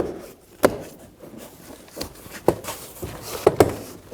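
Ford Edge front door trim panel being pressed onto the door, its plastic retaining clips snapping home: about five sharp knocks and clicks, the last two close together.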